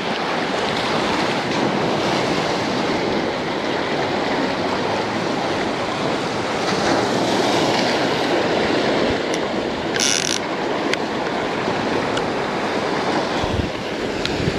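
Steady wash of surf breaking onto the beach, with a short high-pitched rasp about ten seconds in.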